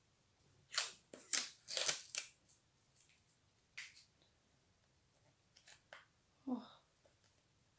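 Clear plastic food box crackling and clicking as it is handled and its lid is worked at, with a quick run of sharp crackles about a second in and a few scattered clicks after. A short "oh" near the end.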